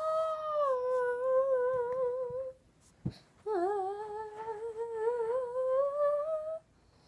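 A voice humming two long wavering notes: the first sinks a little and holds, and after a short break the second rises slowly.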